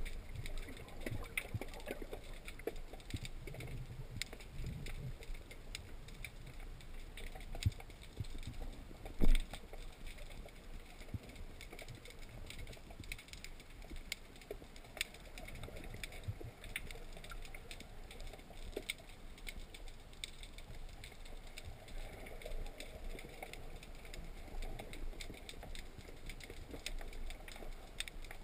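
Underwater sound heard through a camera mounted on a speargun: a low rumble of moving water with scattered clicks and crackles, and one sharp knock about nine seconds in.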